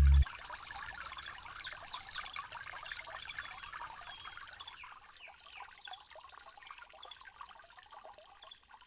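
Water trickling, with many short high chirps over it, fading out gradually toward the end. A loud low hum cuts off just after the start.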